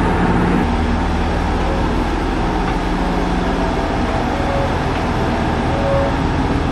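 Diesel railcar engine idling with a steady low rumble, heard from inside the passenger car of a KiHa E130 series train standing at the platform.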